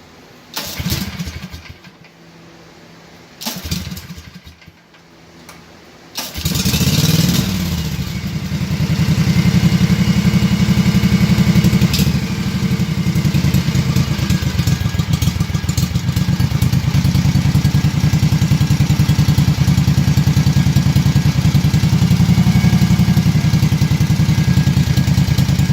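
Kawasaki FH-series V-twin mower engine: two short attempts to start in the first few seconds, then it catches about six seconds in and runs steadily at idle with an even pulsing beat. The idle mixture screw is being turned out to cure a rough idle.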